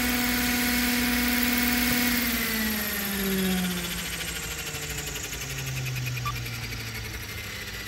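Roban EC130 800-size scale RC helicopter on its pad, its motor and rotors running at a steady whine, then spooling down after about two seconds, the pitch falling in steps and the sound fading as the rotors slow after landing.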